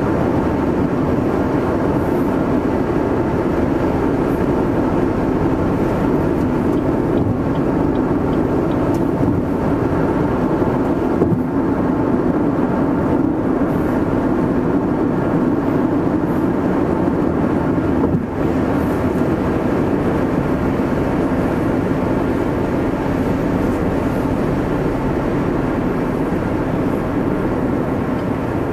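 Steady engine and road noise heard from inside a moving car's cabin, with a brief dip in level about two-thirds of the way through.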